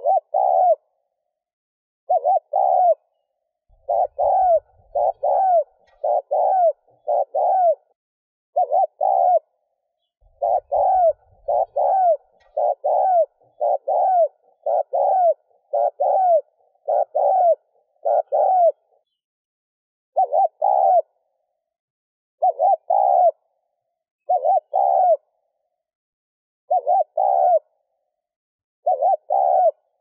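Spotted dove giving short, rapid 'gù' coos, one after another in pairs and runs of several notes with brief pauses between them.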